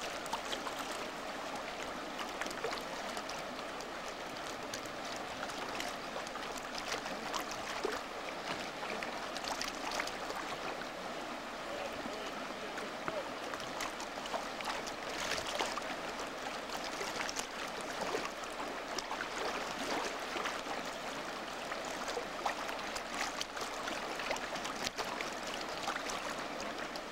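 Fast river water rushing steadily through a shallow, rocky rapid, with scattered short splashes.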